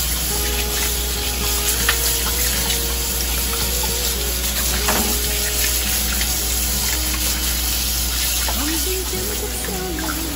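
Kitchen faucet running steadily into a plastic basin in the sink: an even hiss of water, as hands rub and rinse raw pork offal under the stream.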